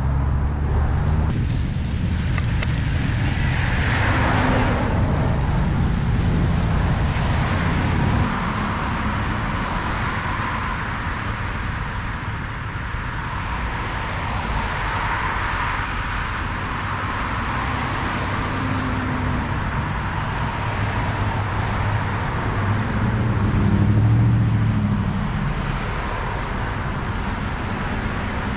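Road traffic going by: steady road noise with cars passing, one a little after four seconds in and a louder one about twenty-four seconds in.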